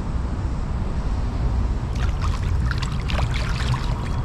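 Water trickling and splashing at close range over a steady low rumble, with a cluster of small splashes and drips from about halfway through.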